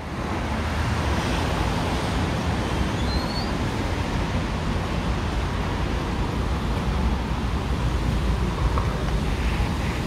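Street traffic: a steady low rumble of passing cars.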